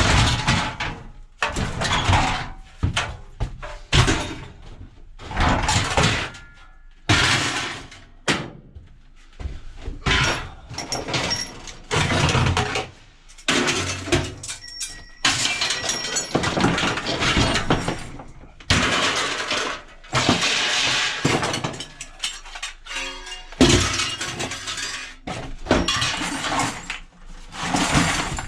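Scrap metal being thrown and tipped onto a pile: repeated loud clattering crashes of metal on metal every second or two, some with a short ring after them.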